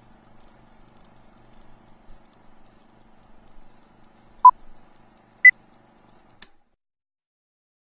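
Two short electronic beeps about a second apart, the second higher in pitch than the first, over a faint steady hum; a click follows and the sound cuts off to silence.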